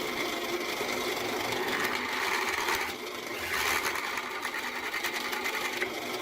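Electric drill running steadily, drilling a hole to mount a ball bearing.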